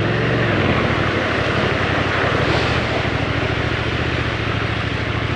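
Yamaha Ténéré 700's parallel-twin engine running steadily as the bike rides the trail, with a steady rushing noise over it.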